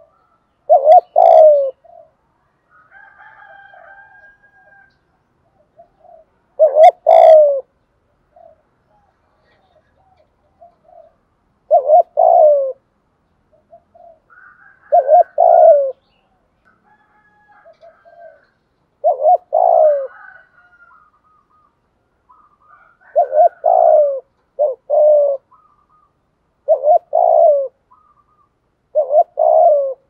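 Spotted dove cooing: repeated two- and three-note coo phrases every few seconds, coming closer together toward the end, in the urgent "thúc gù" style. Fainter chirps from small birds sound between the phrases.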